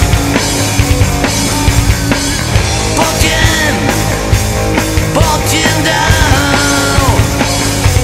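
Loud rock music with a steady drum beat and a bending lead melody line.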